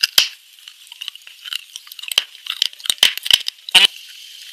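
Close-miked biting and crunching of small hard white pieces: sharp, crisp cracks, few in the first two seconds and coming more often after that.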